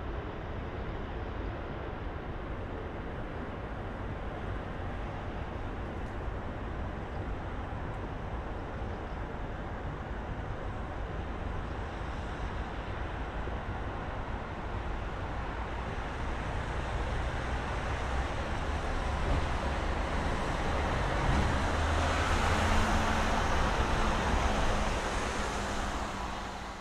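Steady city traffic noise from a riverside road, a continuous low rumble of passing cars. From about seventeen seconds in a vehicle with a low engine hum passes closer and the noise swells, then everything fades out at the end.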